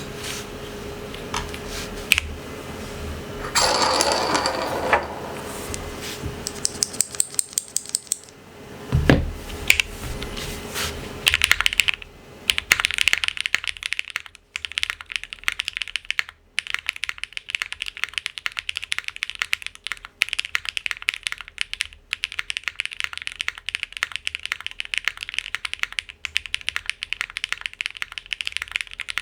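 Geonworks W1-AT mechanical keyboard, built plateless on a 1.2 mm PCB with no foam and lubed Gateron x Geon Raw switches, being typed on. Scattered key presses and a few heavier knocks for the first dozen seconds, then fast, continuous typing.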